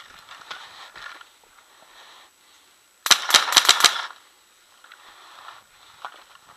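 Smart Parts Vibe electronic paintball marker firing a rapid string of about six shots in under a second, about three seconds in.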